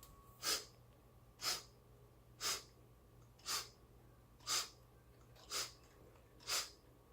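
A sniffing clock ticking: a short sniff once a second in place of each tick, seven in all.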